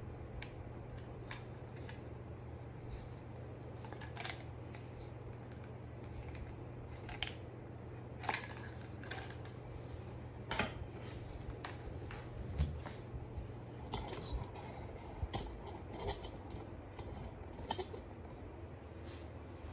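Scattered light clicks and metallic clinks of an aluminium dog-wheelchair frame being handled and its parts fitted together by hand, busier in the second half, over a low steady hum.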